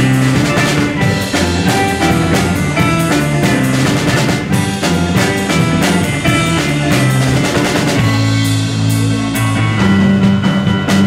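Live rock band playing: electric guitar, bass guitar and a Gretsch drum kit, with a steady beat of drum hits under bass and guitar notes. About eight seconds in the drumming thins out and the bass and guitar hold longer low notes.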